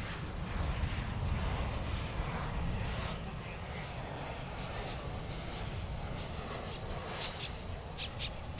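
Jet airliner engines rumbling steadily, louder over the first three seconds and then easing to a lower roar. A few sharp clicks come near the end.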